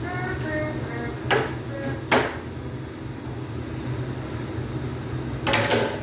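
A few sharp knocks: one about a second in, another about two seconds in, and a double knock near the end, over a steady low hum, with a brief voice at the very start.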